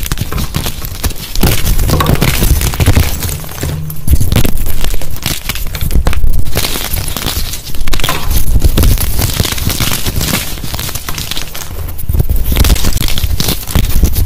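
Dyed gym chalk chunks crushed and crumbled between the fingers in a heap of broken chalk pieces: dense, continuous crunching and crackling.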